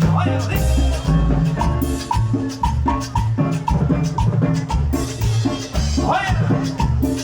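A live tropical dance band playing an instrumental passage: drum kit and Latin percussion over a driving bass line, with a steady beat.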